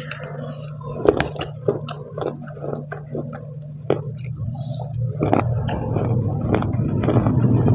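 Close-miked biting and chewing of dry clay pieces: irregular sharp crunches, thicker toward the end, over a steady low hum.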